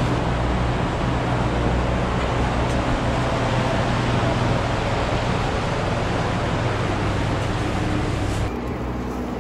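A steady mechanical hum with a rushing noise over it. About eight and a half seconds in it changes abruptly to a quieter, duller hum.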